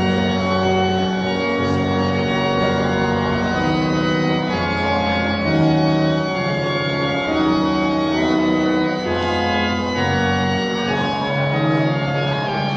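Organ playing slow, sustained chords over a bass line that moves to a new note every second or two.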